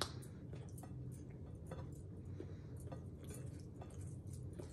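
Quiet eating by hand: fingers mixing rice and curry on a ceramic plate, with scattered light clicks and clinks over a low steady hum.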